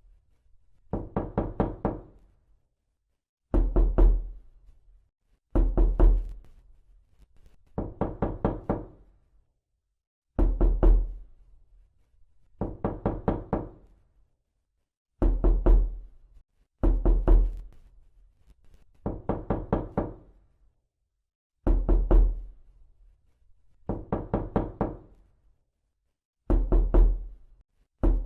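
Knocking on a door, processed as 8D audio: repeated groups of four or five quick raps, one group about every two seconds, alternating louder and softer as the sound moves around.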